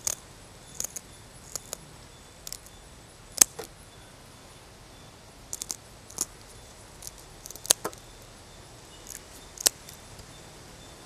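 Kitchen scissors snipping the fins off a grey mullet: about a dozen sharp, separate snips at uneven intervals, some in quick pairs.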